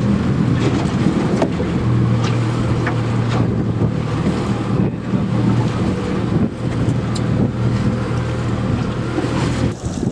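A boat's outboard motor runs with a steady low hum, with wind buffeting the microphone. The hum breaks off near the end.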